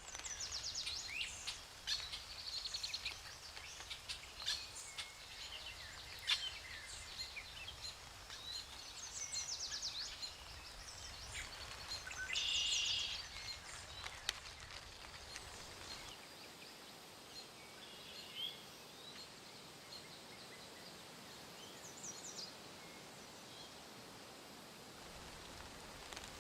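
Several birds chirping and trilling over faint steady background noise, busy in the first half with the loudest call about halfway through, then thinning to occasional calls.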